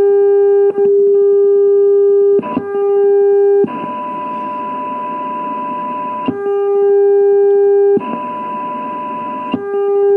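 Demodulated AM test tones from an rtl-sdr receiver with Linrad's very fast AGC. The strong signal generator's steady low tone is cut off several times, and each time the weak generator's higher tone, in hiss, takes over at once, with a click at each changeover. The instant switch to the weak signal shows how fast the AGC responds.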